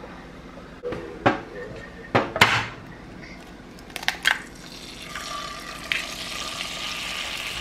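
Pans and utensils clattering in a few sharp knocks, then food starting to sizzle in a hot frying pan about five seconds in.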